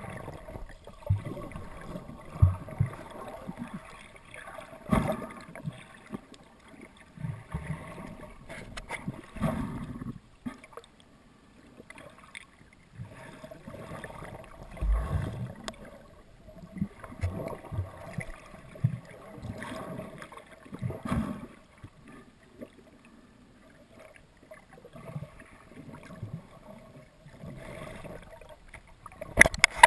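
Muffled, irregular sloshing of water with low knocks and bumps, heard through an underwater camera housing as it is moved about.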